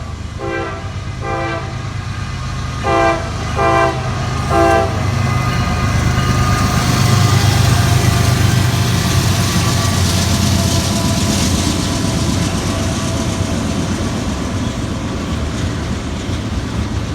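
Freight train horn sounding six short blasts in two groups of three, then the train passing with a steady, heavy rumble of locomotive engine and rolling cars that swells toward the middle and eases slightly near the end.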